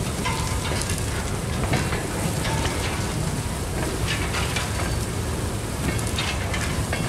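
Empty covered hopper cars rolling slowly past on steel wheels: a steady rumble and rattle with many scattered clicks and crackles, and a few brief, faint squeals.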